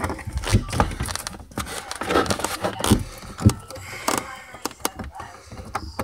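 Irregular knocks, clicks and scrapes of plastic refrigerator interior panels and parts being handled and fitted.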